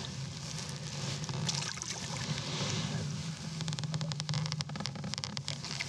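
Water splashing and sloshing beside a boat as a hooked smallmouth bass is brought to the surface and grabbed, with a quick run of splashes about three and a half seconds in, over a steady low hum.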